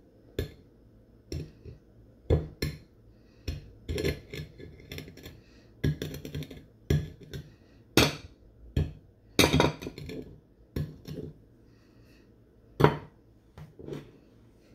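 Rim of a glass goblet knocking and scraping on a ceramic plate as it is turned in chili powder: an irregular string of clinks and taps, a few of them sharper and louder.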